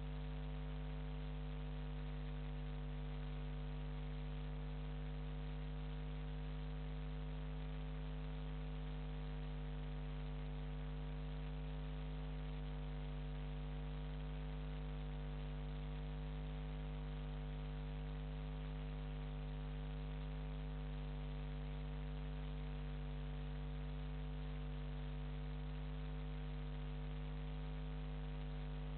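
Steady electrical mains hum, several steady tones over an even hiss.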